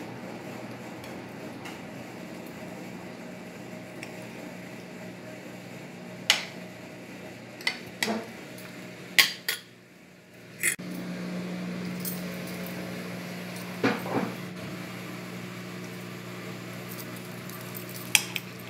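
Metal cutlery clinking and scraping against ceramic plates as a piece of beef is cut and eaten: a handful of separate sharp clinks spread out over several seconds. A steady low hum runs underneath.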